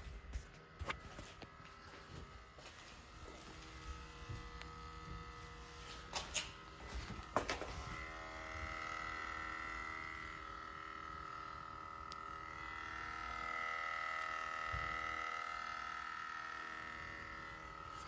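2020 Lexus NX300's evaporative emissions (EVAP) system buzzing while the car sits switched off: a steady electric hum with many overtones. It sets in faintly a few seconds in, grows louder about halfway, and swells and dips slightly. The owner takes it for the canister purge that is normal operation after five hours of sitting. A few sharp clicks come in the first half.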